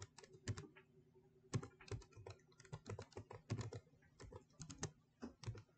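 Typing on a computer keyboard: quick, irregular keystroke clicks in short runs with brief pauses between them.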